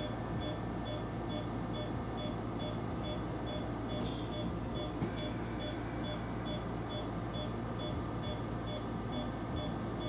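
Anesthesia patient monitor beeping steadily, a little over two short high beeps a second, the pulse tone following the anesthetized dog's heartbeat, over a steady low equipment hum.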